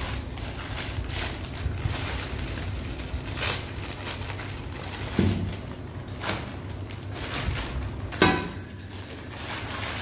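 Metal saddle stay brackets being unpacked and handled: a few separate knocks and clinks, the loudest about eight seconds in with a brief metallic ring, over a steady low hum.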